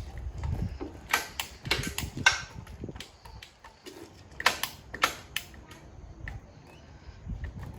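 Handling noise: a series of sharp clicks and knocks, several in quick succession about a second in and another cluster around four and a half seconds, over a low rumble near the start.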